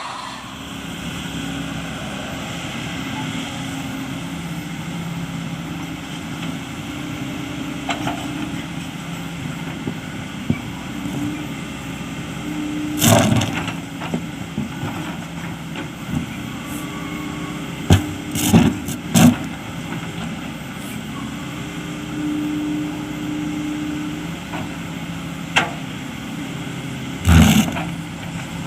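Sany hydraulic excavator's diesel engine running steadily under load, its pitch rising at times, while the bucket scrapes and strikes hard rock. There are loud cracks about halfway through, three more in quick succession soon after, and one near the end.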